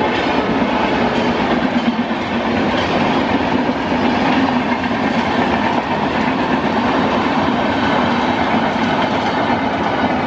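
Rajdhani Express LHB passenger coaches passing at speed: a loud, steady noise of steel wheels running on the rails.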